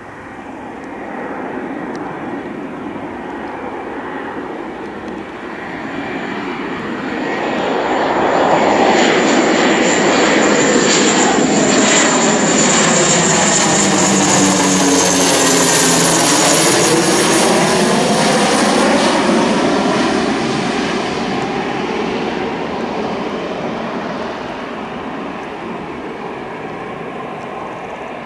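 Antonov An-26B's two turboprop engines and propellers on landing approach, growing louder from about seven seconds in as the aircraft passes low and close, then fading as it moves away toward touchdown. Around the loudest part, the pitch of its drone sweeps down and back up.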